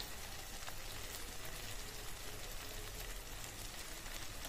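Diced potatoes, onions and tomatoes frying in oil in an aluminium kadhai, a faint, steady sizzle.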